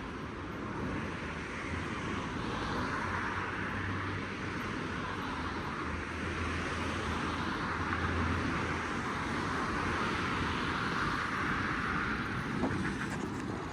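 Road traffic: a steady low engine hum under the rushing noise of passing vehicles, which swells and fades twice.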